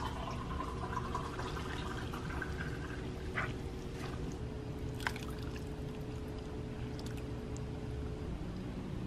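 Soup broth ladled from a pot and poured into a bowl of rice noodles: a soft trickle and splash of liquid, with a couple of light clinks about three and a half and five seconds in, over a steady low hum.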